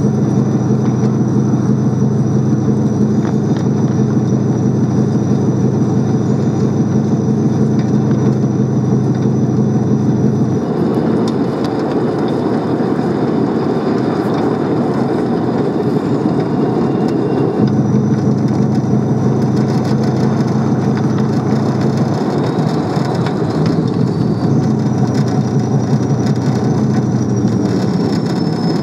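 Miniature railway locomotive built in the outline of a BR Class 20 diesel, running along the track: a steady engine drone over the rumble and clatter of its wheels on the rails. The engine note drops away for several seconds around the middle, leaving mostly wheel rumble, and then returns.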